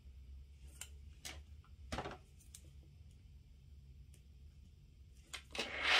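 Pen writing on a paper planner page: a few faint scratches and light taps spread through, one a little stronger about two seconds in, with a brief louder hiss near the end.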